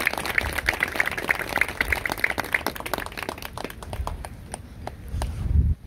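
Audience applause thinning out to scattered claps, then a brief low rumble of wind on the microphone near the end.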